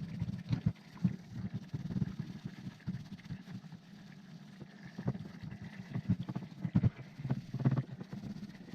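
Irregular clicks and light knocks of parts and hand tools being handled during bench work on a motorcycle's fuel system.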